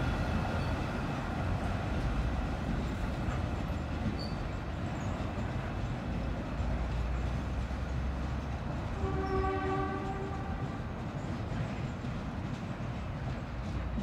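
Ballast train wagons rolling over the rails with a steady rumble and wheel noise as the train pulls away. About nine seconds in, a horn sounds once for a little over a second.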